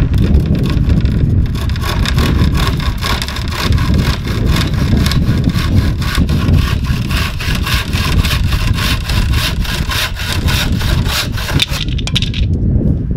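Stanley Jetcut handsaw, a bit blunt, cutting a thin strip of mahogany in quick, even back-and-forth strokes. The sawing stops near the end.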